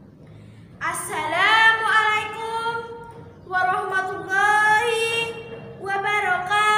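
A young girl singing unaccompanied: three drawn-out phrases of long held notes that slide into pitch, the first starting about a second in.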